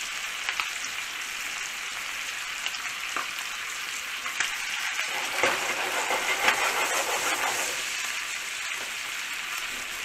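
Lamb shoulder searing in hot oil in a frying pan to build a crust: a steady sizzle with scattered crackles and pops, getting a little louder around the middle.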